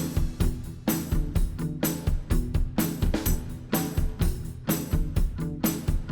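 Background music with a steady drum-kit beat: kick and snare hits roughly two to three times a second under sustained instrumental tones.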